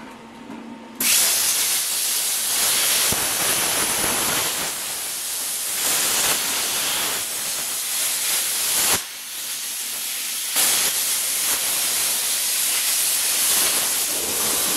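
Plasma cutter cutting sheet steel along a straight edge: a steady, loud hiss that starts about a second in, stops briefly around nine seconds and starts again.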